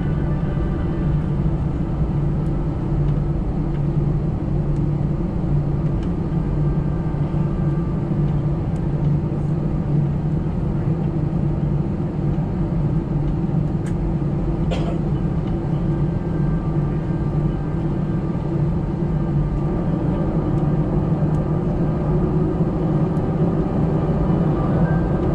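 Steady low hum and rumble of an airliner's jet engines heard from inside the passenger cabin, with a single click about fifteen seconds in and a faint rising tone near the end.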